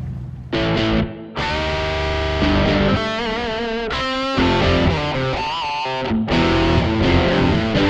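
Intro music led by a distorted electric guitar, starting about half a second in.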